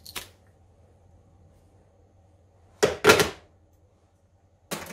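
Low steady hum, broken about three seconds in by one short, sharp noise in two quick pulses, with another brief noise near the end.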